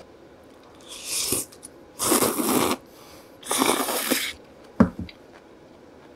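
Kelp-noodle (cheonsachae) 'glass noodles' in mala broth slurped into the mouth in three loud slurps, each under a second long, followed by a sharp click of the lips about five seconds in.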